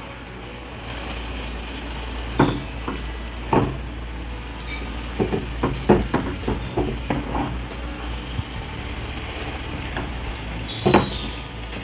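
Marinated chicken pieces frying in a nonstick pan with a steady sizzle, while a wooden spatula stirs them, knocking against the pan now and then, most often in the middle stretch and once more near the end.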